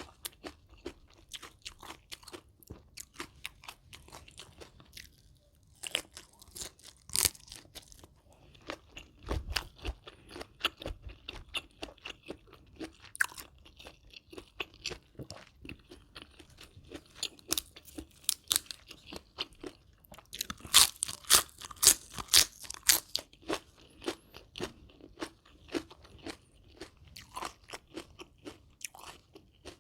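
Close-miked chewing of crunchy food (raw shrimp and fresh raw vegetables in a spicy rice-noodle salad): irregular crisp crunches, with a louder, quicker run of bites about two-thirds of the way through.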